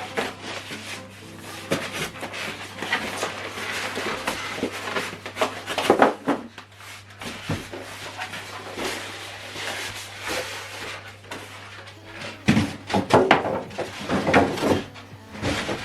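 Unpacking and handling of boxed audio equipment: packaging rustling, with scattered knocks and bumps, and a run of louder knocks in the last few seconds.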